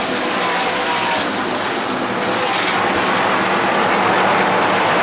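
NASCAR Craftsman Truck Series V8 race engines running at speed as a pack of trucks goes by, a loud, steady, many-engine drone.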